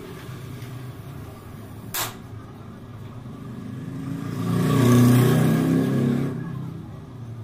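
A motor vehicle's engine passing by, swelling to a peak about five seconds in and fading away. A single sharp clank about two seconds in.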